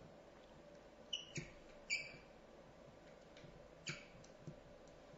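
Faint clicks and short squeaks from handwriting being entered at the computer, with three close together between one and two seconds in and two softer ones around four seconds. They sit over a steady faint hum.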